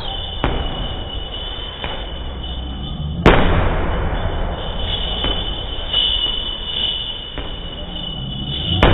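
Boxing gloves thudding into a heavy punching bag, with one hard hit about three seconds in the loudest, over a steady low rumble and a thin steady high tone.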